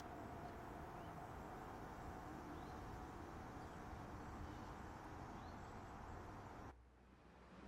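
Faint steady outdoor background noise with a few faint bird chirps; the background drops away suddenly near the end.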